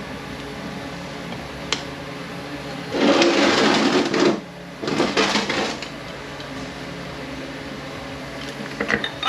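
Transmission parts being handled during a teardown on the bench. There is a click, then two rough scraping, rattling bursts, the first about a second and a half long and the second shorter, and light metal clinks near the end, all over a steady shop hum.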